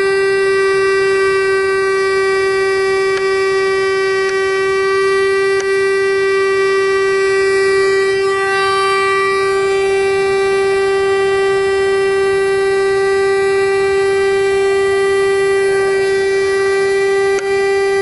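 Pneumatic air scribe running continuously with a loud, steady buzzing whine at one pitch, chipping rock matrix away from a fossil dinosaur tooth.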